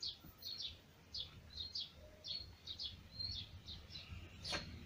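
Small birds chirping: a quick, continuous run of short high chirps, several a second, with a short whistled note now and then, over a faint low rumble. One brief click comes near the end.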